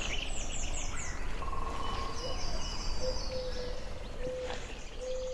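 Several birds singing in a forest: runs of high falling chirps and trills at the start, then a few short, low whistled notes, over steady low background noise.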